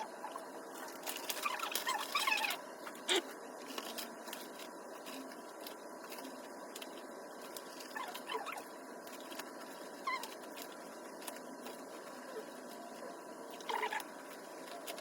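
Steady ambient background noise with scattered sharp clicks and short high squeaks or chirps, busiest in the first three seconds and again briefly near the end.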